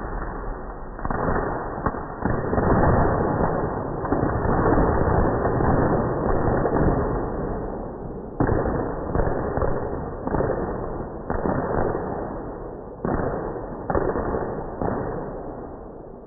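Fireworks mortar shells going off inside a semi trailer: a dense, continuous crackle of blasts for the first several seconds, then separate sudden bursts about once a second, each fading away, with the sound dying down near the end.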